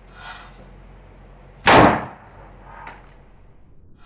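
A plastic water bottle pressurised with a hand floor pump bursts with a loud, sudden bang about two seconds in. Before and after it come short hissing strokes of the pump.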